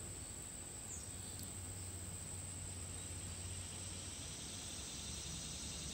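Insects trilling steadily, a continuous high-pitched buzz, over a faint low hum.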